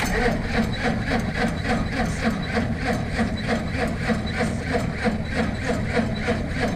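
Starter cranking a cold, heavy engine over in an even rhythm of about four beats a second, starting suddenly and not catching. A steady low engine hum runs underneath.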